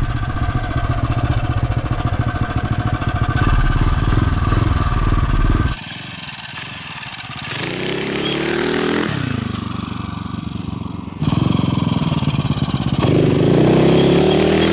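Tillotson 225 single-cylinder racing engine on a home-built dirt bike running under throttle. It then revs up twice, its pitch rising and falling back as the throttle is opened and closed.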